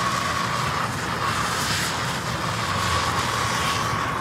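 Hand-held gas torch burning steadily against a coated test panel: a continuous jet-like hiss with a thin, steady high tone running through it.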